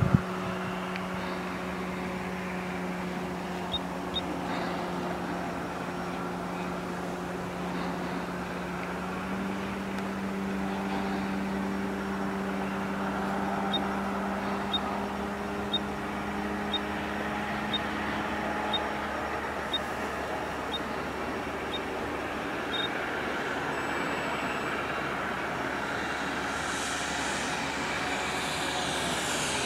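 Electric-powered quarter-scale RC Piper Cub with a 20x6 propeller droning steadily overhead on a landing approach. Its propeller hum steps up slightly about a third of the way in and fades away around two-thirds through. Near the end a rising rush of propeller and air noise comes in as the model passes low and close.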